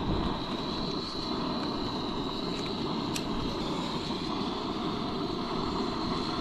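Camp stove burner running steadily under a pot of water for coffee, a constant noise with a steady high whine.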